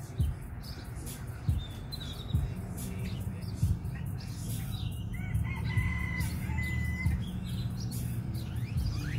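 A rooster crowing once, a drawn-out call beginning about five seconds in, with small birds chirping and a steady low hum underneath.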